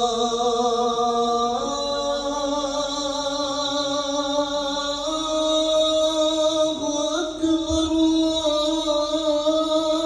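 A man's solo voice calling the adhan, the Islamic call to prayer, in the Makkah style: one long drawn-out chanted phrase that steps up in pitch twice and wavers near the middle.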